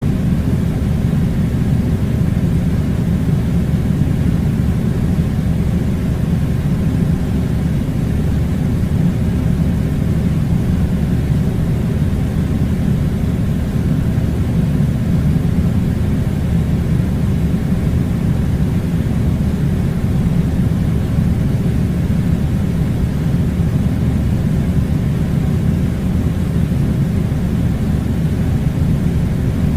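Air conditioning running: a loud, steady low rumble that does not change.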